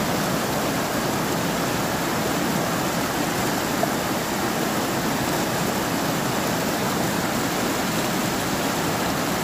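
River water rushing steadily over a small rocky cascade of whitewater rapids.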